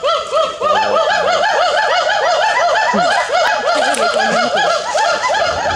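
Hoolock gibbons calling: a rapid, unbroken run of rising-and-falling whooping notes, several a second, with more than one animal's calls overlapping.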